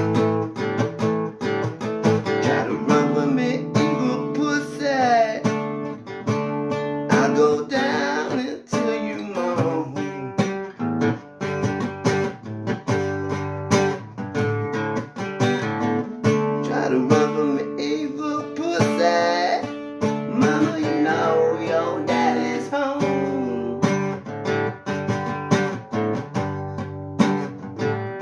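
Acoustic guitar playing an instrumental blues break, a mix of picked and strummed notes, with several notes bent so they glide in pitch.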